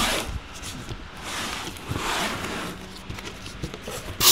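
Cardboard box flaps being prised up and pulled open by hand: scraping and rustling of corrugated cardboard in several swells, the loudest at the very end.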